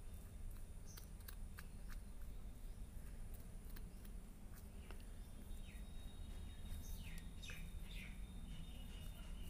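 Faint bird chirping: a few short, falling chirps in the second half, one call held briefly near the end. Underneath are a low steady hum and light scattered clicks.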